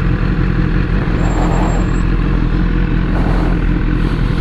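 Motorcycle engine idling steadily at a stop, with no revving.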